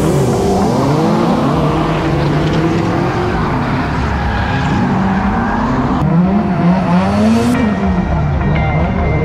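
Drift cars' engines revving up and down over tyre noise, cut off abruptly about seven and a half seconds in, where music takes over.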